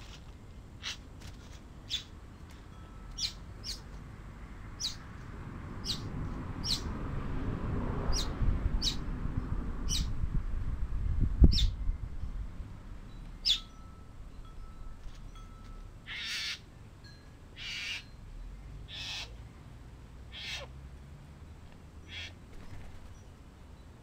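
Male satin bowerbird calling: a string of short, sharp high notes, then several longer, harsh buzzy calls in the second half. A low rumble swells and fades through the middle, loudest about halfway through.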